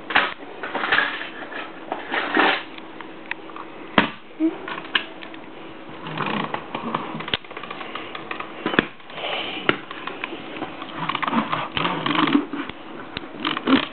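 Plastic LEGO bricks being handled and pressed together on a floor, giving irregular sharp clicks and rattles with rustling in between.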